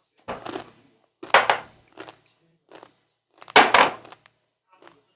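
Tableware clattering on a table: several separate clinks and knocks of dishes and utensils, the two loudest about a second and a half and nearly four seconds in.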